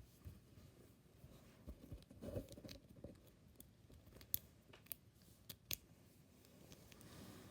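Faint handling of fidget toys: a soft rustle about two seconds in, then a few sharp little clicks about four to six seconds in.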